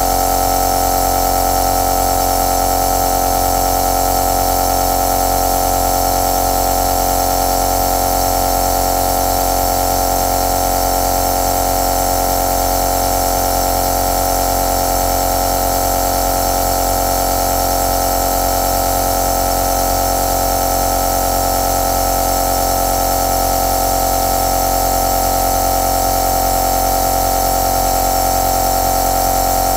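Compressor nebulizer running steadily: the constant electric hum of its small compressor, with one strong mid-pitched tone over a layer of other steady tones and an even hiss.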